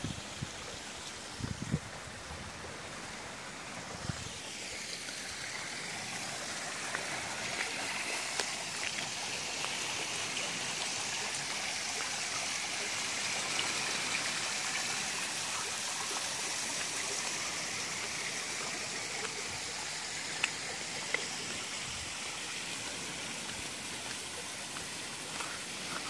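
Steady hiss of running or splashing water that grows a little louder a few seconds in, with a few faint clicks.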